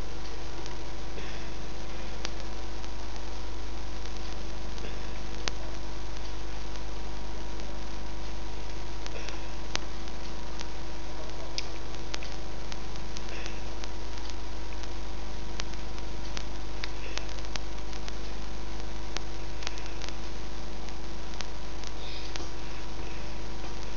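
Steady electrical hum and hiss, with faint clicks scattered throughout.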